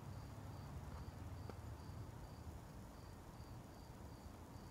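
Faint outdoor background: an insect chirping high and steadily, a little over twice a second, over a low rumble.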